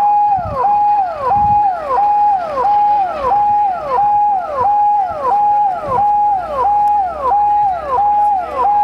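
Emergency vehicle's electronic siren sounding a fast repeating cycle: a held tone that drops in pitch, about one and a half times a second.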